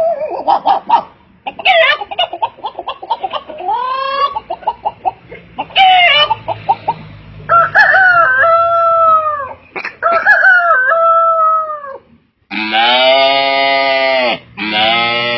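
A person's voice imitating farmyard fowl: a run of quick clucks, then two drawn-out crowing calls that fall away at the end. Near the end come two long, steady calls like bleats.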